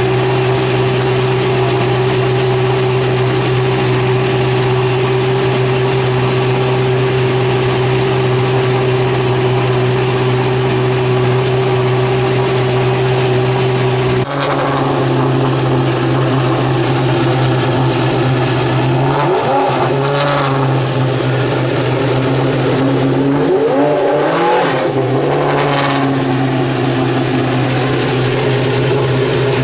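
Racing car engines at a hill climb: a steady engine drone, then after an abrupt cut two bursts of a car accelerating hard, the pitch rising each time, about midway and again a few seconds later.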